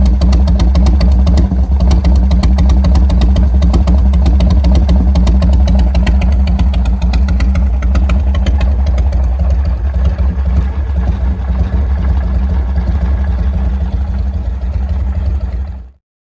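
Harley-Davidson V-twin motorcycle engine idling steadily. It cuts off suddenly near the end.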